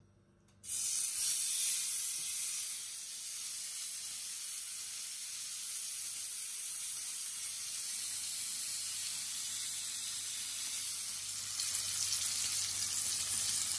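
A beef steak searing in a hot de Buyer Carbone Plus 28 cm carbon steel frying pan. The sizzle starts suddenly as the meat goes into the pan and is loudest at first, then settles into a steady sizzle. It swells again near the end, with butter and garlic foaming around the steak.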